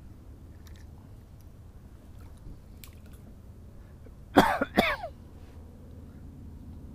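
A man clearing his throat: one short, rough burst of a few quick strokes about four and a half seconds in, over a faint, steady outdoor background.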